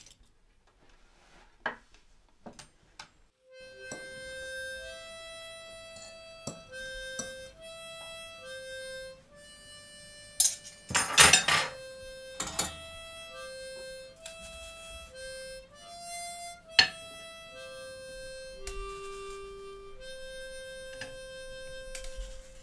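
Background music: a slow melody of long held notes begins about three and a half seconds in. A few sharp clinks and knocks of crockery and utensils come over it, the loudest cluster around the middle.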